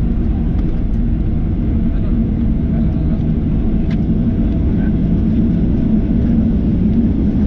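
Boeing 737-800's CFM56 engines running at idle as the aircraft taxis in, heard inside the cabin as a steady low drone.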